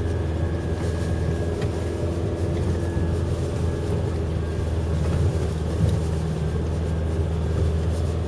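The engine of a modified Arctic Trucks 4x4 pulling steadily uphill at even revs, heard from inside the cabin as a constant low hum.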